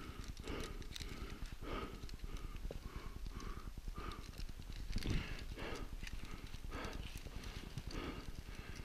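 A man's rapid, heavy breathing close to the microphone, about two breaths a second, with one louder breath about five seconds in.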